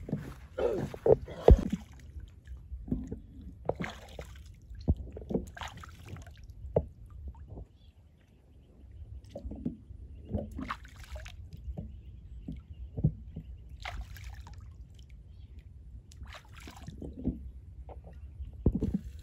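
Shallow puddle water sloshing and splashing in irregular bursts as a scalded bird is swished and rinsed in it by hand.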